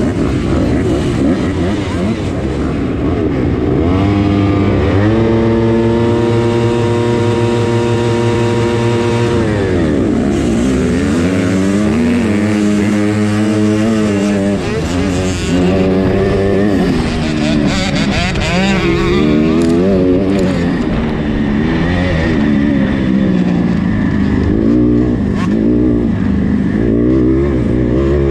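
Motocross bike engine, loud and close, revving with other bikes around it, then climbing about four seconds in and holding high and steady for several seconds. After that it drops and rises again and again with throttle and gear changes.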